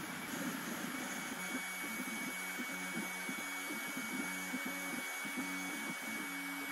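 BlueCarve Bluey CNC router cutting lettering into a painted wooden sign: the trim-router spindle runs steadily with a thin high whine over the cutting noise. From about a second and a half in, the gantry's stepper motors hum in short on-off spurts as the bit traces the letters.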